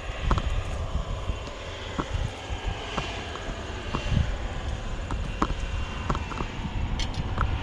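Wind buffeting the microphone with a steady low rumble, with scattered footsteps on the trail.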